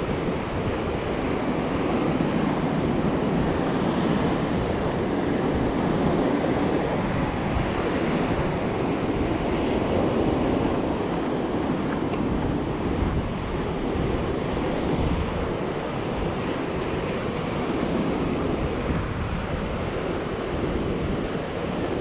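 Ocean surf breaking and washing on the beach, a steady rush, with wind buffeting the microphone.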